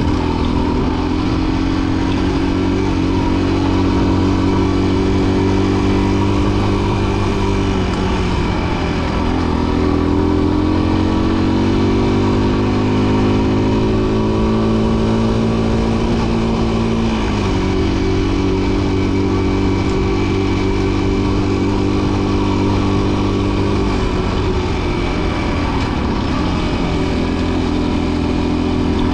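Rieju Marathon Pro 125 MRT enduro motorcycle's 125 cc single-cylinder engine running under way. Its revs dip about eight seconds in, then climb gradually. They drop sharply about seventeen seconds in, then hold fairly steady again.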